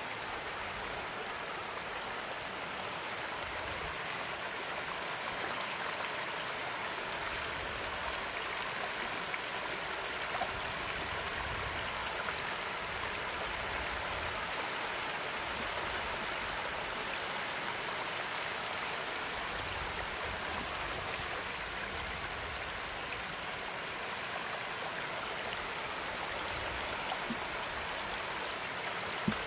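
Floodwater running with a steady rush, with a faint click about ten seconds in and another near the end.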